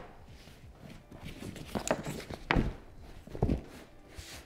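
Hands handling a Yeti Panga dry duffel bag, patting and pressing its thick waterproof shell and shifting its straps: scattered soft thuds and rustles, the loudest a few knocks in the second half.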